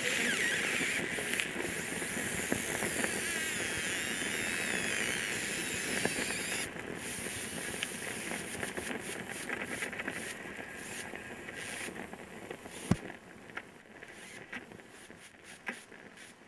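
A camcorder burning: a steady hiss and crackle with warbling high whistles, which break off abruptly about seven seconds in. The sound then thins and fades, with one sharp crack about thirteen seconds in.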